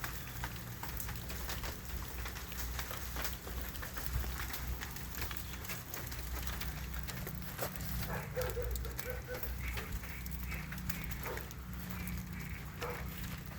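Outdoor wind rumbling on the microphone, with scattered crackles and ticks, and a few faint short pitched calls from about eight seconds in.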